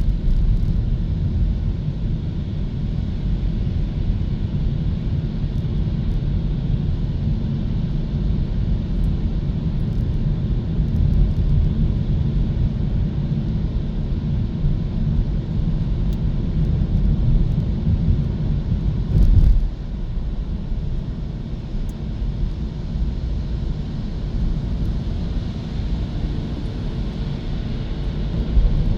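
Hyundai Kona EV driving along, a steady low rumble of road and tyre noise with no engine sound, briefly louder about 19 seconds in.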